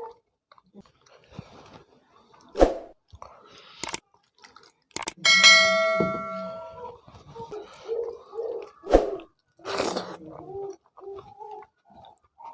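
A metal dish or utensil knocked so that it rings with a bright, clear tone for about two seconds, among several sharp clinks and knocks of tableware.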